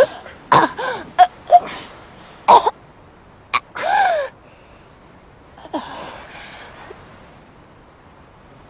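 A woman choking and gasping as she is strangled: several short rasping gasps and coughs, a longer strained sound about four seconds in, and a last fainter one about six seconds in.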